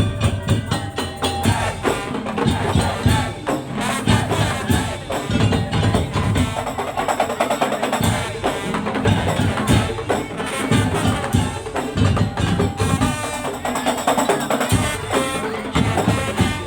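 Madurese tong-tong (daul) ensemble playing a dense, steady rhythm on wooden slit drums (kentongan) with drums.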